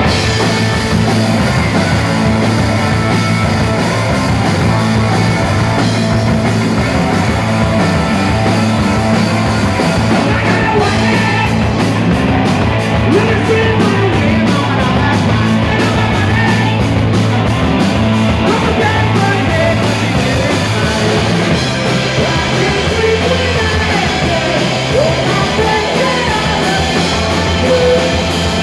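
Live punk rock band playing loud and fast: distorted electric guitars, bass and drums, with a woman singing over them from partway through.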